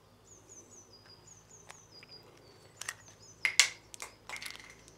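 Sharp clicks and short rustles of hard plastic being handled, bunched about three to four and a half seconds in: the ribbed plastic saddle height insert and a paint marker pen worked against the seatpost. A small bird chirps in the background, a falling chirp repeated over and over.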